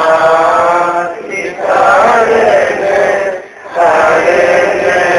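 A group of male voices chanting Buddhist devotional verses together in long held phrases. The chant breaks briefly about a second in and again about three and a half seconds in.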